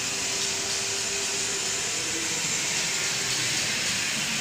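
Steady, even hiss of outdoor background noise.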